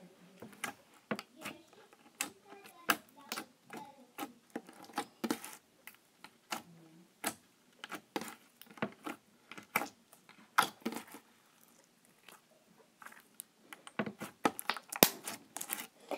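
Glitter slime being poked and squeezed with the fingers, giving irregular small clicks, pops and squelches. Near the end, a few sharper clicks as a plastic container lid is handled.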